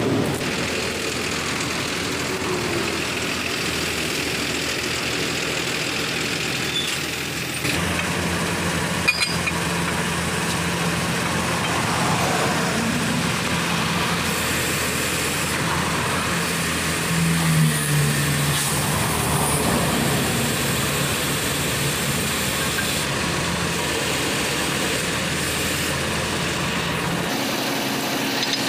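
Heavy tow truck's diesel engine idling steadily, with a single sharp click about nine seconds in.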